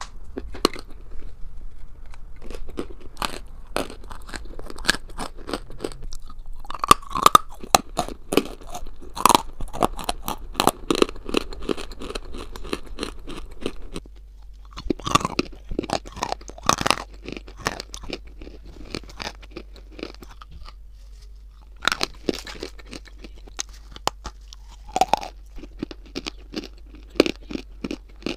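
Loud, close-miked crunching and chewing of hard white chunks of chalk and clay, as a person bites into them and grinds them in the mouth. The crunches are irregular, and they break off briefly about halfway through before starting again.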